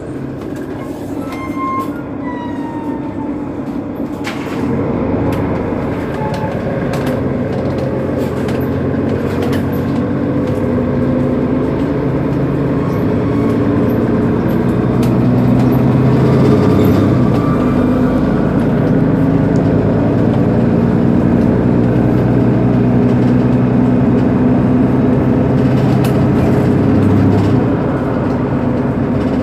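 Mercedes-Benz Citaro G C2 articulated bus standing with its engine running, a steady low hum that grows louder about five seconds in and again around the middle, then eases slightly near the end.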